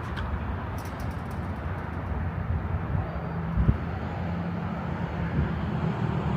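Motor vehicle engine running close by over a steady rush of road and outdoor noise, its low hum growing stronger partway through, with one short thump about three and a half seconds in.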